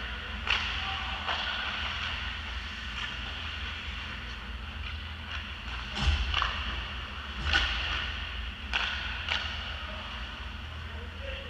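Ice hockey rink sounds: a steady low rumble with a handful of sharp clacks and knocks from sticks, puck and skates. The loudest comes about halfway through, with a dull thud in it, and a few more follow over the next few seconds.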